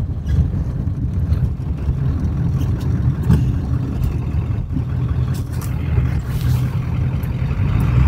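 Steady hum of a 1996 Ford F350's 7.3 Powerstroke diesel engine and tyre noise, heard from inside the cab while the truck drives along a snow-covered road.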